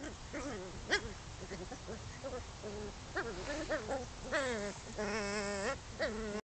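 Chow Chow puppies yipping and whining as they wrestle: short pitched cries that slide up and down, a sharp click about a second in, and a longer wavering whine near the end.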